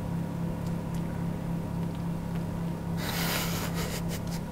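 A steady low hum, with a short breathy huff about three seconds in: someone breathing out hard around a mouthful of scalding-hot food.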